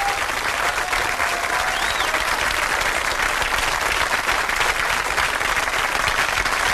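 Studio audience applauding steadily as the episode ends.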